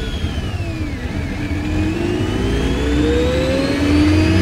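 Mercedes M271 supercharged 1.8-litre four-cylinder engine of a 2003 C180 Kompressor under acceleration, with a high whine that follows the revs. The revs fall over about the first second, as in a gear change, then climb steadily.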